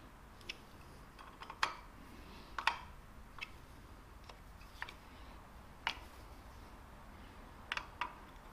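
Screwdriver clicking against the steel screws in the aluminium cover plate of a Harley-Davidson Panhead engine case as the screws are run down lightly, just until they touch. The short, sharp clicks come irregularly, about one a second, with two close together near the end.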